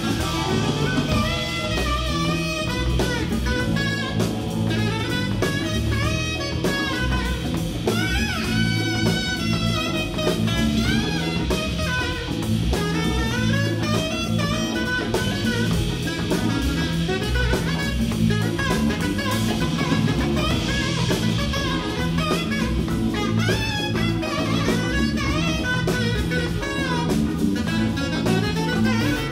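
Live jazz band playing: a saxophone solos in quick, bending melodic runs over drum kit, bass and keyboards.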